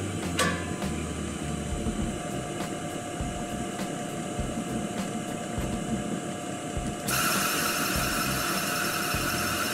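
Stainless-steel Fuji Paudal Marumerizer spheronizer running empty, its motor humming steadily with a held tone as the grooved friction plate spins. A sharp click comes about half a second in, and a louder hiss joins abruptly about seven seconds in.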